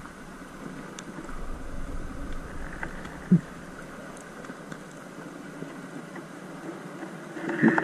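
Underwater ambience heard through a diving camera's housing: a steady hiss and faint hum, with one sharp knock a little before halfway and a short burst of clicking and rattling near the end.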